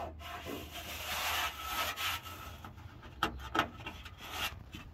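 Rubbing and scuffing handling noise from a hand close to the microphone, with a few sharp clicks in the second half.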